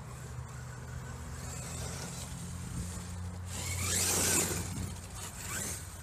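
Brushless electric RC monster truck (Redcat Rampage XTE) driving fast over dirt and grass. Its motor whine rises in pitch and the tyres scrabble and throw dirt as it passes close, loudest about four seconds in.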